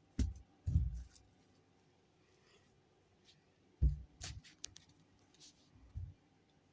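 Handling noise from plush toys being picked up and set down: dull thumps with light rustling and small clicks, in three short clusters near the start, around four seconds in, and near six seconds.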